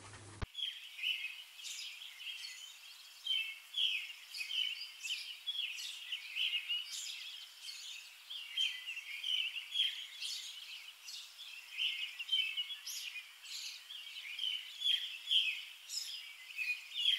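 Birds chirping: many short, irregular high-pitched calls overlapping continuously.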